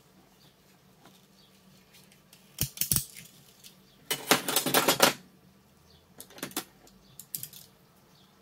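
Clicking and rattling of small hard objects being handled on a workbench: a few sharp clicks about two and a half seconds in, a dense rattle lasting about a second near the middle, then a few scattered clicks.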